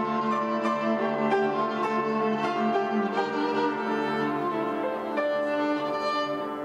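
Live violin and piano duet: the violin bows long held notes over a stream of piano notes.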